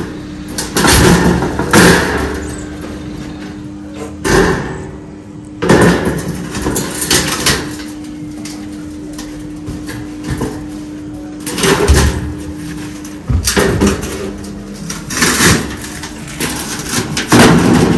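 Irregular metallic bangs and knocks of an iron door being worked into its iron frame, about nine sharp impacts spaced a second or more apart. A steady hum runs under them and stops about two-thirds of the way through.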